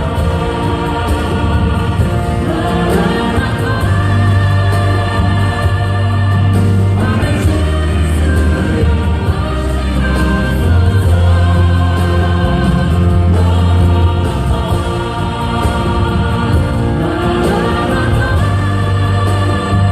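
Choir singing a hymn with strong instrumental accompaniment and sustained bass notes.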